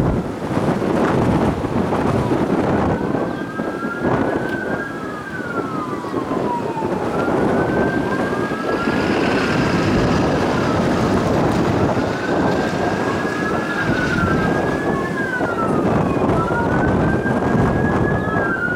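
A siren wailing, rising, holding and falling in overlapping cycles of a few seconds, over a steady rush of wind noise on the microphone.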